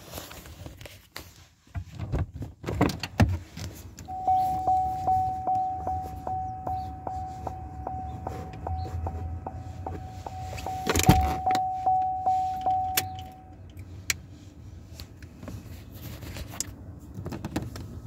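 A car's warning chime dinging steadily, about two chimes a second, while the car door stands open; it stops suddenly about three-quarters of the way through. Clicks and knocks of the door and of phone handling sound around it, with one louder knock about two-thirds of the way in.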